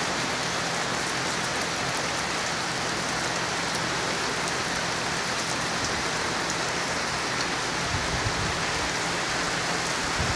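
Steady rain falling on a wet paved driveway and a parked car.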